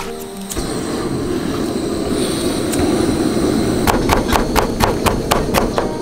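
Chinese cleaver chopping carrots on a wooden cutting board: from about four seconds in, quick even knife strikes, about four a second, over a steady low rumble.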